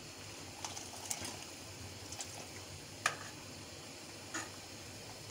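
Ladle stirring simmering soup in a large aluminium pot, with a few sharp clinks of the ladle against the pot, the loudest about three seconds in, over faint bubbling.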